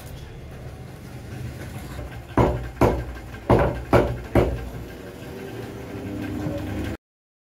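A meat cleaver chopping chicken on a wooden chopping block: five sharp chops in quick succession, over a steady low hum.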